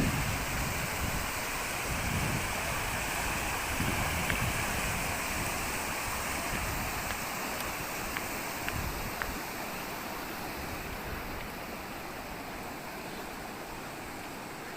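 A stream rushing steadily, growing a little fainter toward the end, with some low wind rumble on the microphone in the first few seconds.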